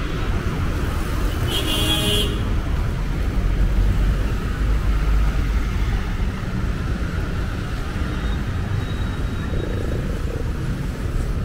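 City street traffic: motor vehicles running past in a steady low rumble, loudest about four to six seconds in as one passes close. A brief high-pitched sound cuts in about two seconds in.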